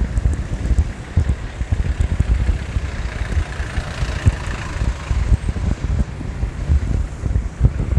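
Wind buffeting the microphone in uneven gusts, over street traffic; a vehicle swells past about four seconds in.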